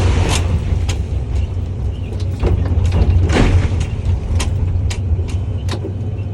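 Volvo excavator's diesel engine running steadily, heard from the cab, with scattered sharp clicks and knocks and a couple of short rushing noises from the machine at work.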